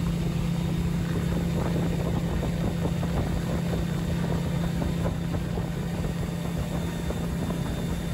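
Mercury outboard motor pushing a pontoon boat under way, a steady drone that holds at one pitch over the rush of the churning wake. The motor is running well.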